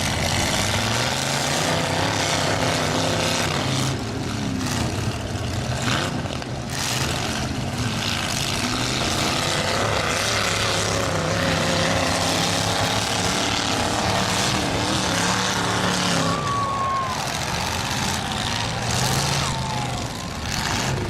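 Several demolition-derby truck engines running and revving hard, with a few sudden thumps of trucks colliding.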